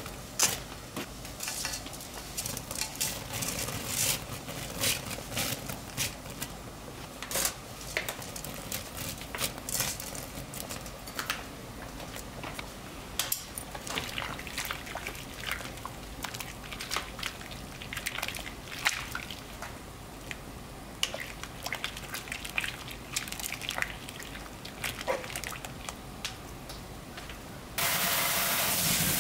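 A pan of boiling water bubbling, with scattered clicks and crackles as dried thin wheat noodles go in and are stirred with metal tongs. Near the end a steady gush of water starts suddenly, pouring into a stainless steel perforated strainer in a sink.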